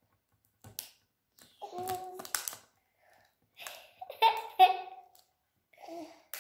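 Young children's short wordless vocal sounds and babbling, several brief utterances with gaps between them, plus a few sharp clicks.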